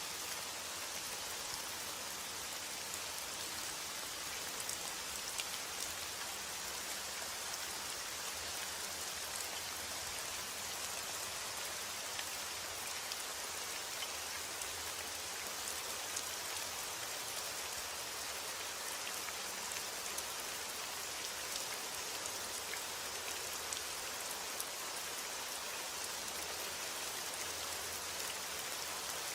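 Steady rain falling, an even hiss of drops pattering on a surface with many fine individual drop ticks, unchanging throughout.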